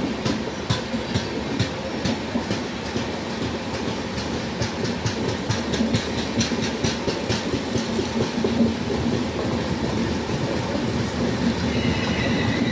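Passenger train running, heard through an open coach door: a steady rumble with the clickety-clack of wheels over rail joints and points, the clicks coming thick and fast in the middle. A high wheel squeal starts near the end.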